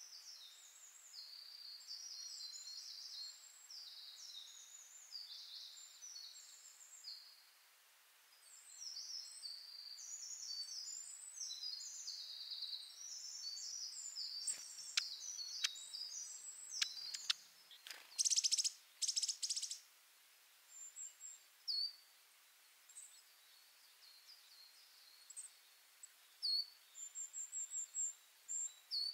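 Small birds chirping and twittering in a busy, overlapping chatter of quick high notes. A few sharp clicks and a buzzy rattle come midway, and the chatter then thins to scattered high calls with a fast run of ticks near the end.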